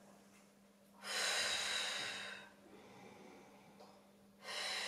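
A woman breathing audibly and with control while holding a Pilates bridge. There is one long breath starting about a second in and lasting about a second and a half, and another begins near the end.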